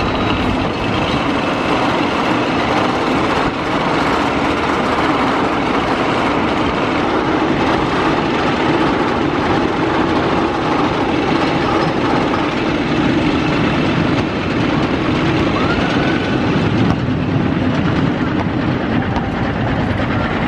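Roller coaster train on an RMC hybrid coaster (red steel track on a steel lattice structure) running along its track with a steady, loud rumbling roar.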